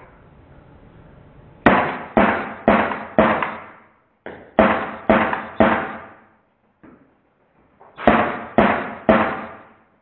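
Shots from a Drozd Blackbird CO2 BB gun fired in three quick strings (four, then three or four, then three), about two shots a second, each with a short ringing tail.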